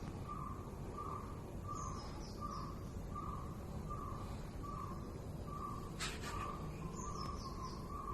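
A bird calling outdoors, a short note repeated steadily about every two thirds of a second, with a few faint high chirps from another bird.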